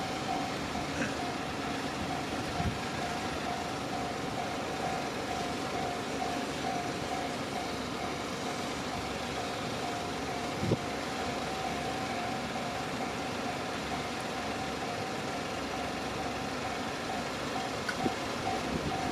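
Japanese railway level-crossing warning bell ringing over and over, an even pulsing single-pitched tone, over a steady background rumble. A single sharp knock about ten and a half seconds in.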